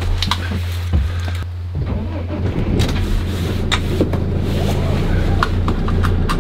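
Camper van's engine idling as a steady low hum in the cab, with knocks, clicks and rustling as the driver gets into the seat and buckles the seatbelt near the end.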